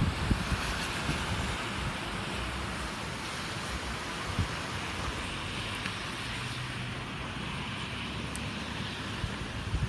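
Steady rain with gusting wind, the gusts buffeting the microphone in low rumbles.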